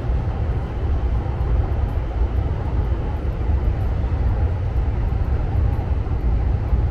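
Steady city street noise with a deep, constant rumble, such as traffic, heard while walking along a busy street.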